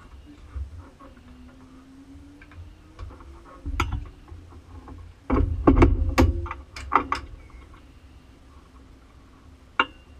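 Sharp clicks and knocks of cockpit gear being handled in a race car, as the steering wheel is unclipped from its quick-release hub. One knock about four seconds in, the main cluster about five to seven seconds in, and a single sharp click near the end.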